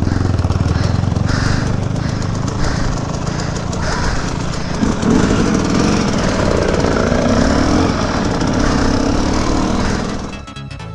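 Two-stroke KTM 250 EXC dirt bike engine running under the rider while it is ridden slowly, with the revs climbing and falling from about halfway in.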